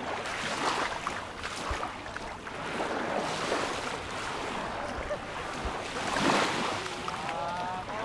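Small Mediterranean waves lapping and washing up a fine-gravel shoreline, swelling softly every few seconds. A person's voice starts near the end.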